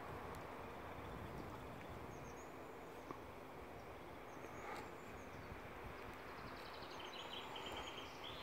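Steady outdoor background noise with faint high bird calls, ending in a quick high trill near the end.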